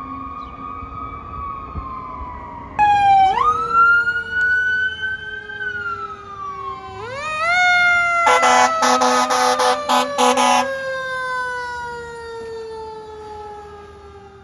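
Fire engine siren wailing, rising and falling in pitch, with a louder siren starting abruptly about three seconds in. Around two-thirds of the way through, the truck's air horn sounds in several quick blasts, and then the siren slides slowly down in pitch as the truck goes past.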